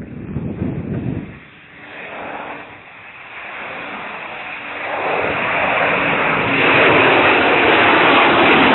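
Aircraft approaching and passing low overhead near the runway end. Its roar swells from about halfway through to a loud steady level by near the end.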